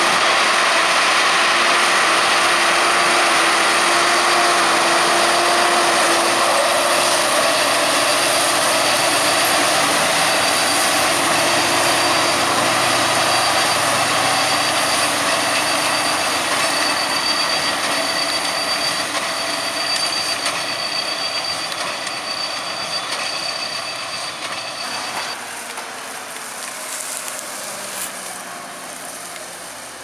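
Fendt 939 Vario tractor and Krone BiGPack large square baler working straw: a dense mechanical clatter over the engine's drone, with a steady high whine. It fades gradually as the outfit moves away.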